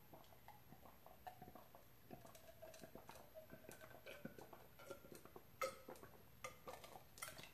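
Faint gulping and swallowing of ice water from a glass, with ice cubes clicking against the glass a few times near the end.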